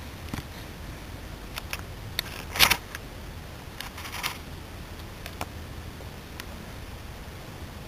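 Handling noise from the camera lying low in dry grass: scattered clicks and short rustles close to the microphone, the loudest a brief scrape about two and a half seconds in, over a steady low wind-like rumble.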